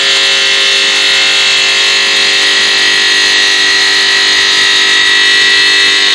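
Water-cooled diamond blade of a CNC five-axis bridge saw cutting a curved kerf through a stone slab: a loud, steady high-pitched whine made of several sustained tones.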